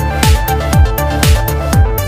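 Electronic dance music with a steady thumping kick drum, about two beats a second, over sustained synth tones.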